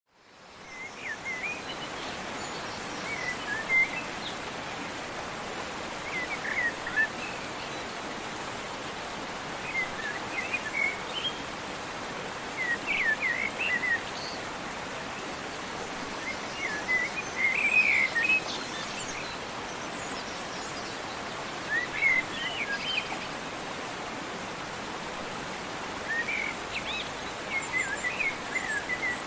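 Steady rush of a waterfall with small songbirds chirping in short phrases every few seconds. It fades in over the first second.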